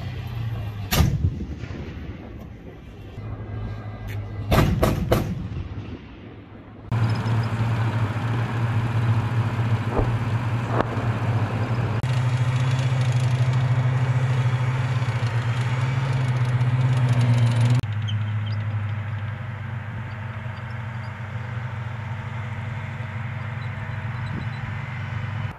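Bradley fighting vehicle engine and tracks running, with a single sharp bang about a second in and a quick cluster of bangs around four and a half seconds. From about seven seconds a louder, steady engine drone takes over, easing a little after about eighteen seconds.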